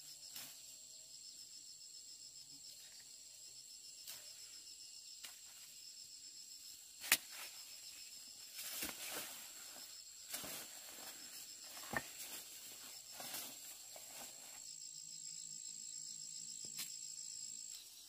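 Insects trilling steadily: one high continuous tone with a faster pulsing chirp just beneath it. A few sharp clicks and short rustles break in, the loudest click about seven seconds in.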